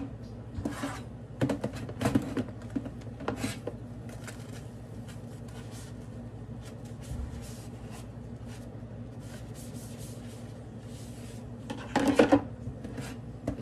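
Sponge scrubbing hard plastic containers in a stainless steel sink, with light knocks of plastic in the first few seconds. A louder clatter of plastic about twelve seconds in as a container is set down in the drainer.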